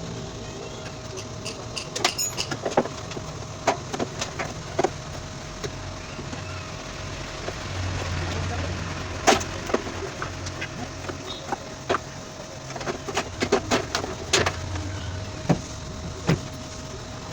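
Irregular sharp knocks and clicks from hand work on a damaged car body, the loudest about nine and fourteen seconds in, over a steady faint hum.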